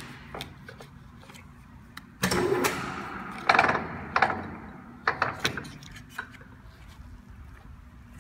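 Metal clunks and a rattle from the headstock speed-range levers of a 1997 Kingston HD-22160 gear head lathe being shifted: a rattling stretch about two seconds in, then several sharp clunks, over a low steady rumble.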